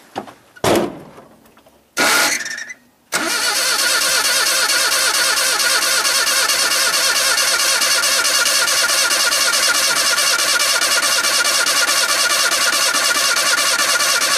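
A thump and a short burst of noise, then about three seconds in a pickup truck's starter motor begins cranking the engine steadily for about eleven seconds without it catching, stopping near the end. The engine is being started on wood gas alone, with no gasoline, and it isn't firing: the builder suspects it is getting too little air, or none.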